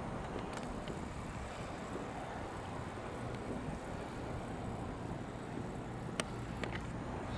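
Street traffic ambience: a steady hum of passing vehicles with wind buffeting the microphone, and a few sharp clicks near the end.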